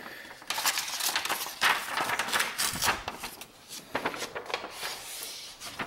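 A sheet of paper rustling and crinkling in irregular bursts as it is pulled off the machine and handled.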